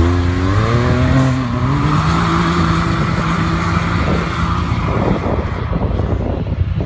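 Can-Am Maverick X3's turbocharged three-cylinder engine revving up as the side-by-side accelerates away across sand. Its pitch rises over the first second and a half, then holds steady and grows fainter as it pulls away.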